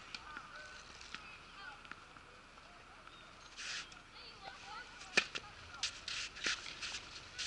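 Tennis serve on a clay court: a few soft ball bounces, then one sharp crack of racket on ball about five seconds in, the loudest sound. Shoes scuff on the clay and fainter hits follow near the end.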